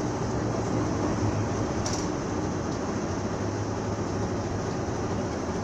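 Steady low hum of a train standing at a station, with held low tones over a noisy rumble; a brief sharp click about two seconds in.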